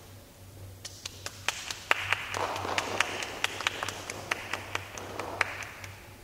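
Applause from a small group of people. A few claps start about a second in, swell into dense clapping with some sharp single claps standing out, and die away near the end.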